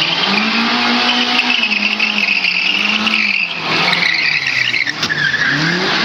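Small hatchback rally car's engine revving hard, its pitch rising and dropping about three times as the throttle comes off and goes back on, with tyres squealing as the car slides through a tight turn.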